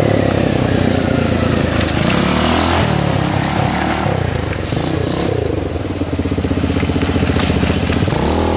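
Small gasoline engine of a ride-on vehicle running under throttle, its pitch falling and rising as it is revved, with a sharp rise near the end. It runs smoothly.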